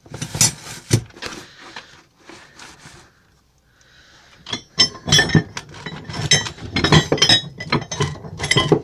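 Metal hand tools, old files, clinking and rattling against each other as they are handled in a bag. There is a flurry of clinks at the start, a brief lull in the middle, then a dense run of clinks and clatter through the second half.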